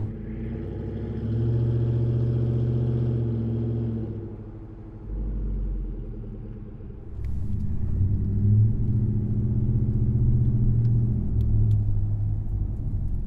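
A Ram 1500's 5.7-litre Hemi V8 running through an MBRP XP Series cat-back dual exhaust with a high-flow chambered muffler in place of the factory resonators and muffler: a low idle with light, brief revs that swell and ease a few times. It is heard at the polished tailpipe and, by the end, from inside the cabin.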